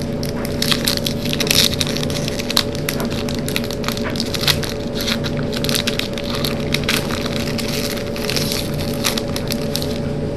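Foil wrapper of a trading-card booster pack crinkling and crackling as it is opened, in dense irregular crackles.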